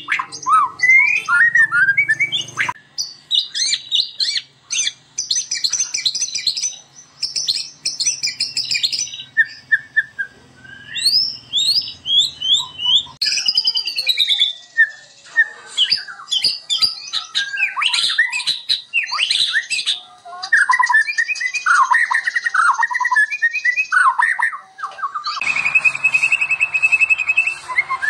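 White-rumped shama (murai batu) singing a rapid, varied song of clear whistles, slurred notes and harsh chattering phrases. The recording is spliced from several takes, and the background changes abruptly a few times.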